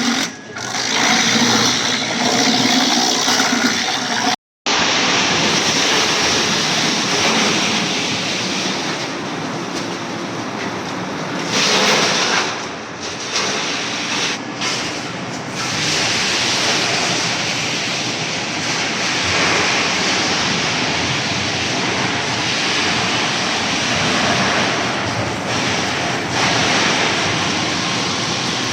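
Wood-chip production line machinery running: a loud, dense, steady noise of wood-processing machines at work, with no clear rhythm. It cuts out completely for a moment about four seconds in.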